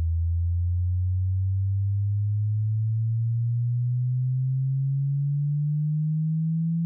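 Pure sine-wave test tone of a hearing-test frequency sweep, low-pitched and rising slowly in pitch at an even volume.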